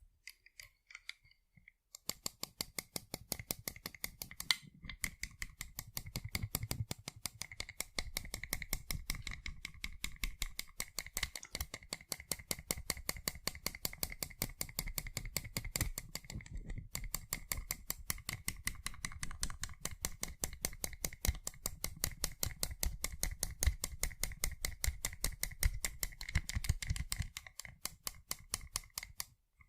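Rapid fingernail tapping on sunglasses, a fast run of light clicks that starts about two seconds in, breaks off briefly twice and stops near the end.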